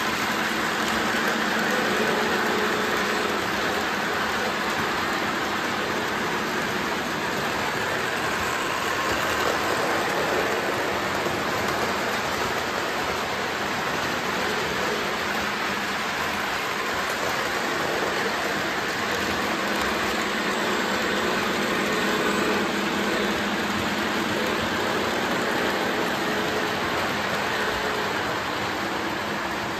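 Lionel O-gauge model steam locomotive and cars running on three-rail track: a steady rolling rush of metal wheels on the rails, with a faint motor hum that comes and goes.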